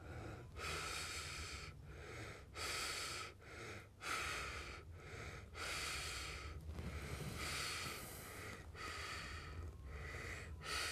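A person breathing audibly close to the microphone: a run of breaths in and out, each about a second long, with short pauses between them.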